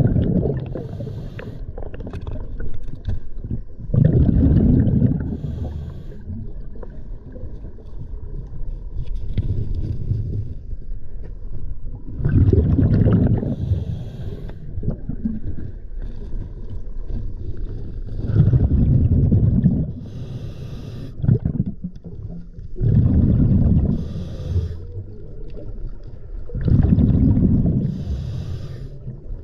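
Scuba diver breathing through a regulator underwater. Each cycle has a hiss on the inhale and a rumbling gush of exhaled bubbles, repeating about every five seconds.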